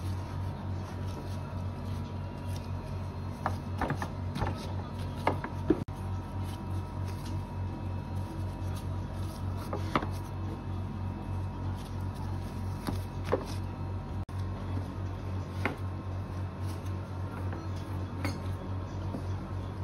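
A steady low background hum, with a few sharp clinks and taps as dough pieces are set into metal loaf tins and the tins are handled.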